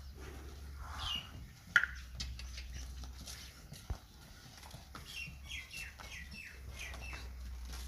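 Small birds chirping, with a quick run of short falling chirps in the second half, over the slow hoof steps of a bull hauling a loaded wooden cart. A single sharp knock about two seconds in.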